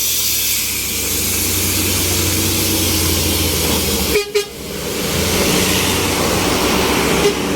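A bus engine labouring up a steep grade, a steady low rumble under the even hiss of heavy rain. The sound dips briefly about four seconds in, then picks up again.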